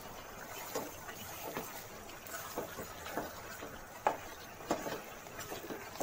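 Wooden spatula stirring chicken pieces in a thick gravy in a metal pot, with irregular soft scrapes and knocks against the pot, the sharpest about four seconds in, over a faint hiss.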